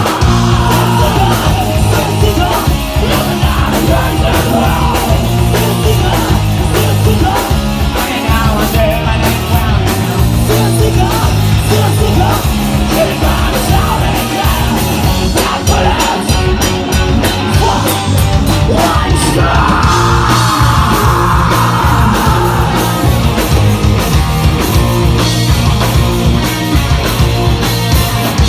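Live rock band playing loud: distorted electric guitars, bass and drums with shouted vocals. A high held note stands out over the band for a couple of seconds about two-thirds of the way through.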